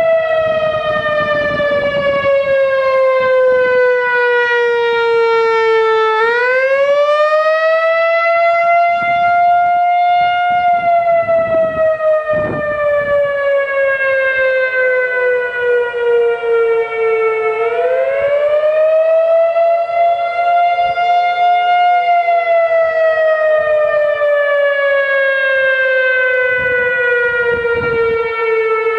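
Whelen 3016 single-tone electronic outdoor warning siren sounding its wail tone, working normally: one loud tone sliding slowly down and back up in pitch, rising twice, with about eleven seconds to each rise-and-fall cycle.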